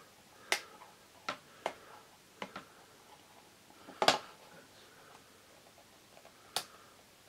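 Sharp clicks of thin sheet metal as the small folded tabs holding a metal box lid are pried and bent up by hand: about seven scattered clicks, the loudest a short cluster about four seconds in.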